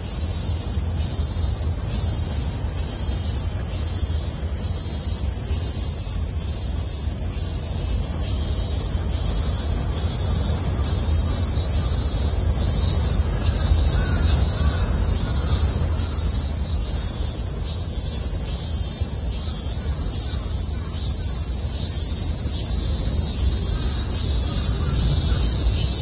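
Cicadas singing in a steady, continuous high buzz. A second, lower-pitched buzz joins in for about five seconds around the middle. A low rumble runs underneath.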